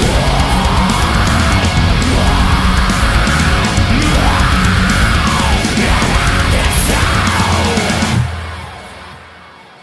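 Black metal music played at full intensity, a dense wall of distorted sound with a melody line rising and falling over it. It stops abruptly about eight seconds in, leaving a low tone that fades away.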